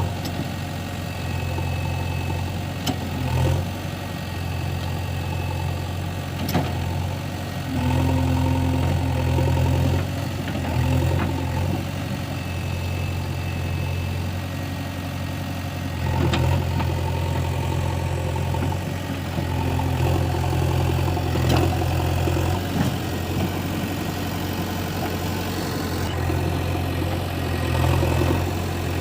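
JCB 3DX backhoe loader's four-cylinder diesel engine running steadily. It grows louder for stretches of a few seconds now and then as the machine works, and a few sharp knocks sound over it.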